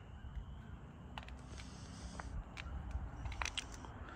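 Low, steady rumble of traffic on a nearby busy highway, with a few faint clicks scattered through it.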